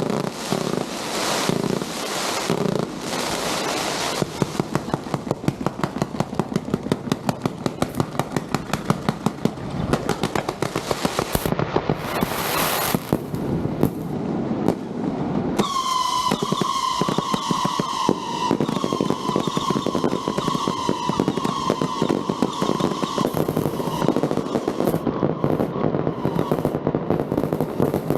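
Strings of firecrackers crackling and banging, at times in a fast even run of several bangs a second. About halfway through, a whistling firework joins in with a shrill whistle that holds near one pitch, sinking slightly, for several seconds over the crackle.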